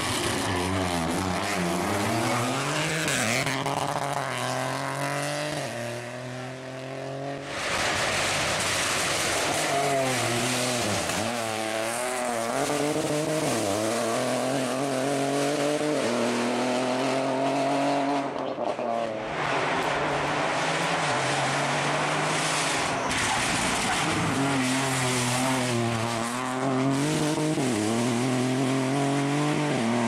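Rally car engine working hard, its revs climbing and falling again and again with gear changes and braking, in a few separate passes.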